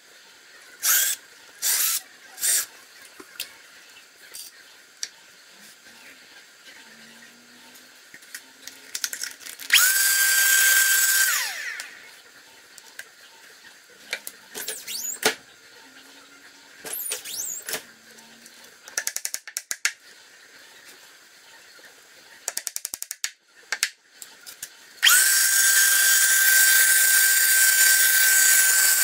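Cordless drill drilling holes in a wooden speaker cabinet: short bursts, then longer runs in which the motor whine holds steady and winds down when the trigger is released. Twice, quick runs of rapid clicking.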